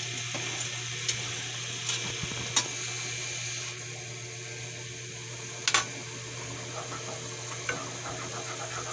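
Minced garlic and onion frying in melted butter: a steady sizzle with a few sharp pops.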